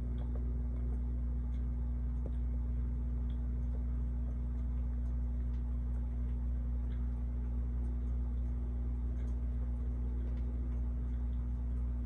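1981 CEC ToastMaster spinner ceiling fan running at medium speed: a steady low motor hum with faint, irregular ticks. Its bearings make a slight grinding noise, which the owner thinks means they need oiling.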